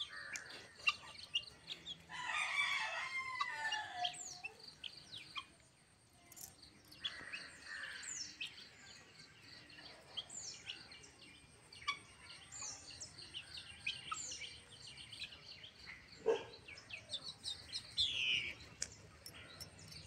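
Fowl calling, with a long crow-like call about two seconds in and a shorter call near eight seconds. Many short, falling small-bird chirps come and go over a steady high insect trill.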